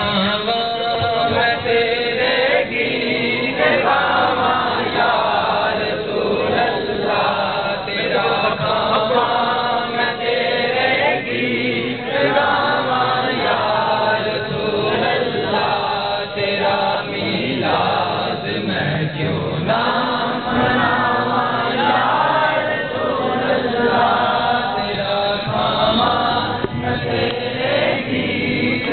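A group of men chanting devotional verses together in a continuous, rhythmic recitation, the kind heard at a Mawlid gathering.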